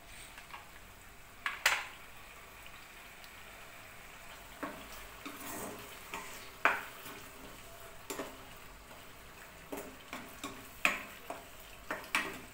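A steel spoon scrapes and knocks against a non-stick kadhai as thick onion-tomato masala paste is stirred. The knocks come irregularly, a second or two apart, over a faint steady sizzle of the paste frying in oil.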